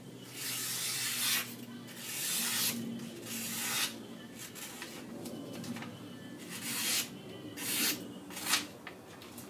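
Opinel No. 8 folding knife blade push-cutting through a strip of paper, making a string of rasping hisses. Three longer cuts come in the first four seconds, and several shorter ones follow later. It is a paper test of the freshly sharpened edge, which is cutting cleanly.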